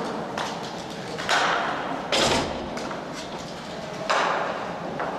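Roller hockey play: sharp knocks of sticks, puck and boards, three loud ones and several lighter ones, each trailing off in the rink's echo.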